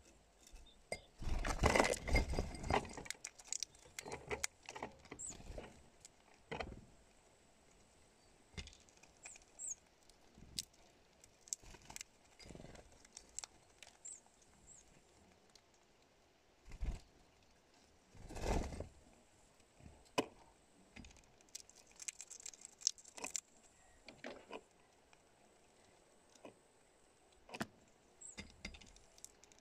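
Irregular clicks and taps of a hawfinch's claws and bill on a glass cup and stone, with two louder flurries, about two seconds in and again past the middle, as birds land and move about.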